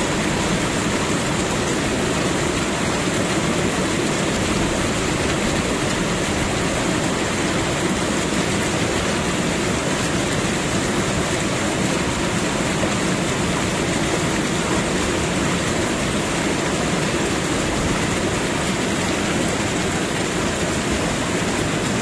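Steady, even rushing sound of water, used as a masking track under hidden subliminal affirmations.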